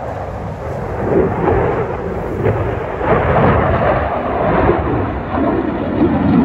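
Eurofighter Typhoon's twin EJ200 turbofans running in afterburner as the jet climbs away: a loud, deep jet rumble that swells about a second in and stays loud.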